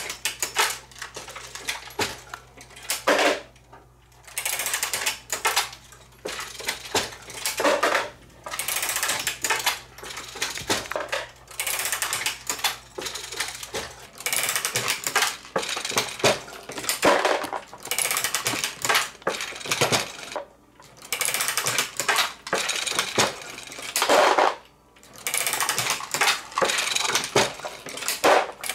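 Dillon 1100 progressive reloading press being cycled to load 9mm rounds: repeated bursts of metallic clinking and rattling of brass cases and cartridges, a stroke every second or two with short pauses between.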